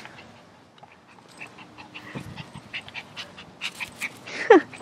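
A toy poodle on the move, with scattered light clicks, and near the end one short cry from the dog that falls steeply in pitch.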